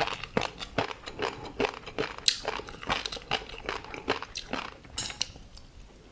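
Close-miked chewing of tobiko fish roe and crunchy seafood topping: a quick run of crisp clicks and crunches, a few a second, easing off near the end.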